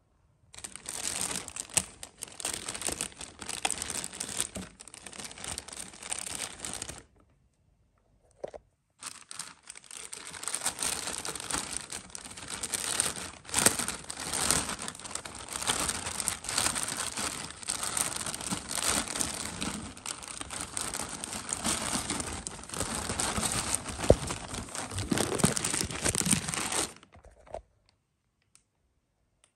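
Clear LDPE plastic bag crinkling as hands handle and open it, in two long stretches with a pause of about two seconds around seven seconds in, stopping a couple of seconds before the end.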